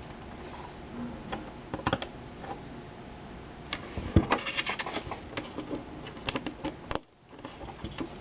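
Small plastic LEGO pieces clicking and rattling as they are handled and fitted together: irregular sharp clicks, a quick flurry of them about four seconds in. The sound drops out briefly near the end.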